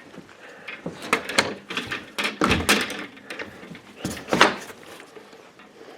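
A room door being closed: a string of clicks and knocks from the handle and the door, the heaviest about two and a half and four and a half seconds in.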